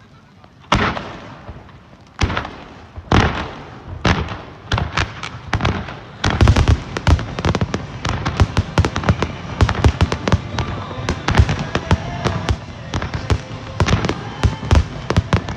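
Fireworks finale: aerial shells bursting, first as single loud bangs about a second apart, then from about six seconds in a rapid, near-continuous barrage of overlapping bangs.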